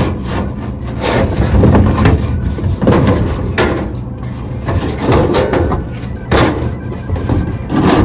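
Drop tray of a Royal Coke vending machine being worked loose and pulled out: irregular metal clanks, knocks and rattles over a steady low hum.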